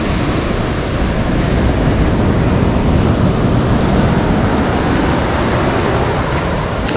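Ocean surf washing onto the beach, a steady loud rush, with wind buffeting the microphone.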